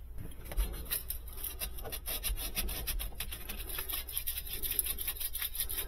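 Irregular scratchy rubbing and scraping as hands work a black sleeved line and a green ring against the refrigerator's plastic liner.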